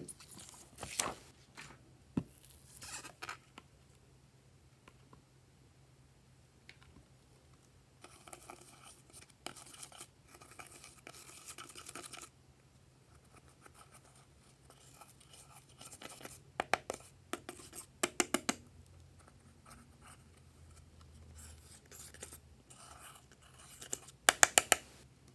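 A hand tool scraping and scratching pressed eyeshadow and glitter powder out of the pans of a makeup palette: scattered ticks, a longer stretch of scratching, and quick runs of sharp clicks, the loudest run near the end.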